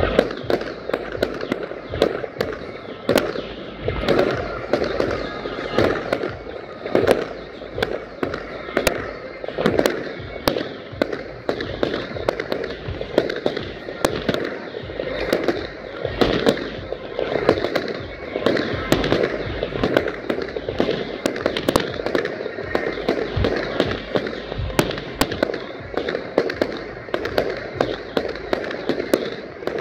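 Professional fireworks display: aerial shells bursting in a dense, unbroken barrage of bangs.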